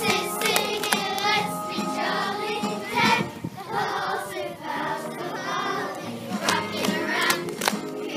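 A group of primary-school children singing a Christmas song together in chorus.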